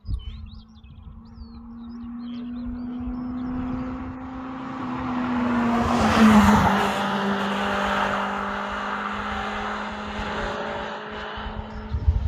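A first-generation Toyota MR2 hillclimb car driving past at a gentle pace, its engine holding one steady note. The engine grows louder to a peak about six seconds in, drops a little in pitch as it goes by, and fades away. A brief low thump comes near the end.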